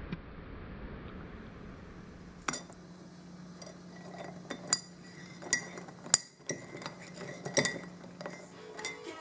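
Metal teaspoon clinking against the inside of a ceramic mug as a hot drink is stirred: several sharp, irregular clinks after a steady hiss in the first couple of seconds, over a faint steady hum.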